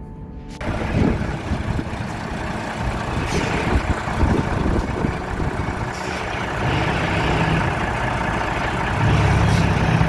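Heavy truck's diesel engine running steadily at low revs, with scattered knocks and clatter in the first few seconds and the engine hum growing louder near the end.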